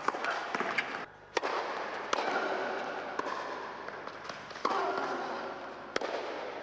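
Tennis ball struck by rackets and bouncing on an indoor hard court: a run of sharp, irregular pops that echo in the hall.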